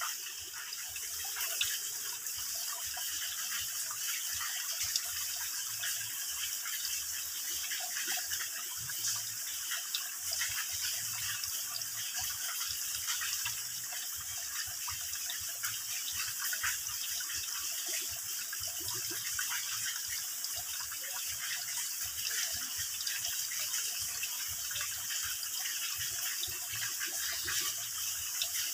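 Water dripping and trickling in many thin streams from a mossy rock overhang into a shallow pool: a steady, even patter of small splashes.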